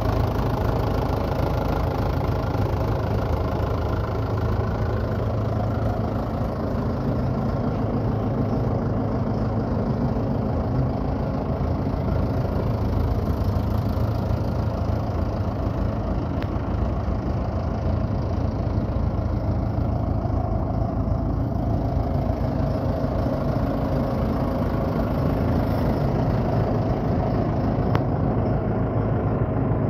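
Vintage JCB 3 backhoe loader's diesel engine idling steadily.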